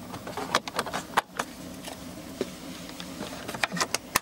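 Plastic interior door trim being handled and fitted by hand: a series of small clicks and taps, closer together near the end, over a steady low hum.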